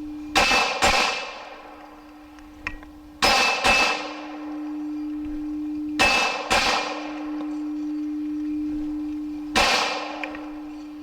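Glock 26 9mm pistol fired in double taps: four volleys about three seconds apart, most of them two shots half a second apart. Each volley sets steel targets ringing, and a steady low ring from a struck steel gong hangs between volleys.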